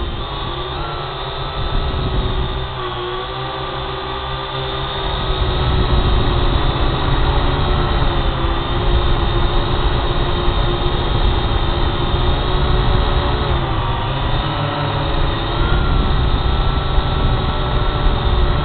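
Quadcopter drone's motors and propellers whirring steadily, the pitch drifting slightly up and down as it flies, over a low rumble. Louder from about six seconds in.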